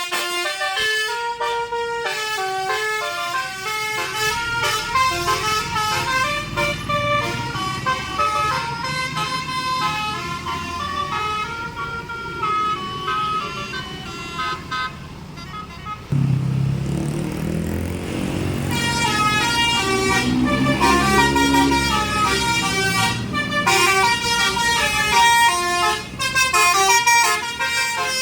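A bus's 'telolet basuri' musical horn plays a fast melody of many stepped notes. Partway through the melody breaks off and a low engine rumble comes in suddenly. The melody then starts up again over the engine and runs on.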